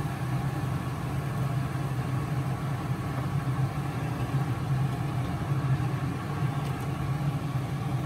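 Steady low mechanical hum of a kitchen appliance, over a pot of broth at a rolling boil as string beans are dropped into it by hand.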